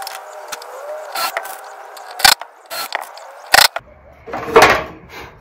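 Cordless drill running in short bursts, drilling holes and driving screws through soft pine, with sharp knocks of wood and tools in between; the longest and loudest burst comes near the end.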